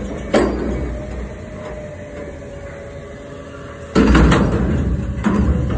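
Front-loader garbage truck's engine rumbling steadily and its hydraulics whining, with three loud metal bangs from the dumpster as the truck handles it. The loudest bang comes about four seconds in.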